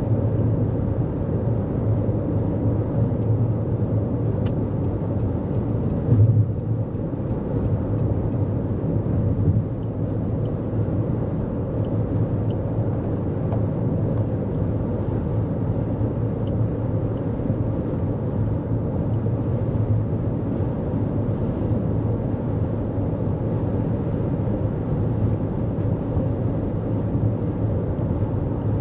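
Steady road and tyre rumble of a 2024 Toyota Corolla Cross at highway speed, heard from inside the cabin, with one brief louder thump about six seconds in.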